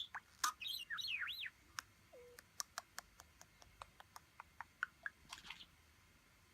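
Budgerigar chattering: a quick burst of warbling chirps with rising and falling glides, then a run of short clicks about five a second, ending in a brief chirp.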